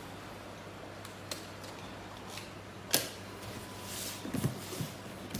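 Large cardboard box being handled and turned over on a counter: quiet scuffing and rustling with a few light taps and clicks, the sharpest about three seconds in.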